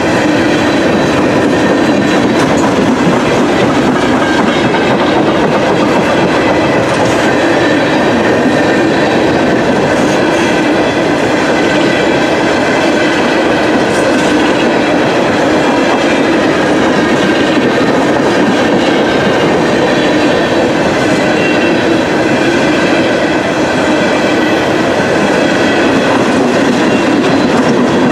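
Open-top coal hopper cars of a CSX freight train rolling past close by: a loud, unbroken rumble with the clickety-clack of the wheels over the rail joints.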